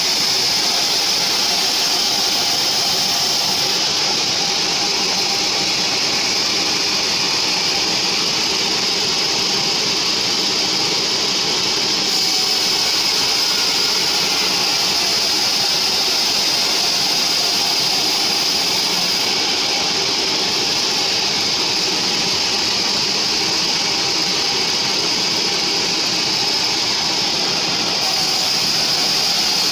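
Sawmill band saw running and ripping a mahogany beam lengthwise, the blade cutting steadily through the wood. It makes a loud, steady whine with a high hiss over it.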